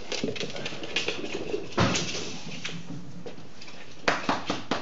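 French bulldog snorting and snuffling close to the microphone, with one loud bump just under two seconds in and a quick run of sharp clicks near the end.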